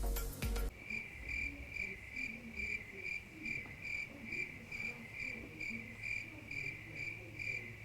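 Cricket chirping sound effect: a steady high chirp pulsing about three times a second, starting just under a second in, right after a short music passage with drum hits cuts off.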